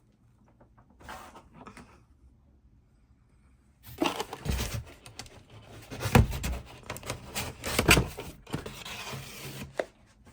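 Packaging being handled while items are lifted out of a robot vacuum's box: a little faint rustling, then several seconds of rustling and scraping with a couple of sharp knocks.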